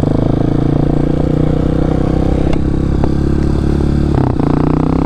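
Honda CRF230F dirt bike's single-cylinder four-stroke engine running at low, steady throttle while being ridden, heard from on the bike; the engine note changes briefly about four seconds in.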